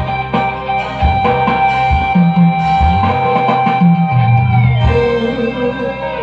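Recorded music with guitar, bass and drums, played loud through a three-way sound system speaker box under test.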